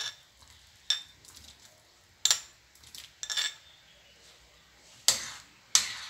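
Metal spoon clinking and scraping on a ceramic plate as lemon and ginger pieces are pushed off it into a pot of boiling water: about six short, sharp clatters a second or so apart.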